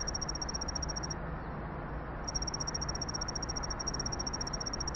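A rapid, high-pitched pulsing chirp that stops for about a second partway through, then carries on, over a low steady hum.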